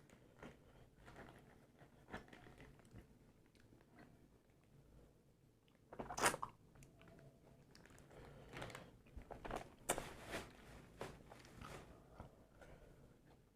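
Crisp pani puri shells crunching as they are bitten, then chewed. There are scattered crunches, the loudest about six seconds in, followed by a denser run of smaller crunches.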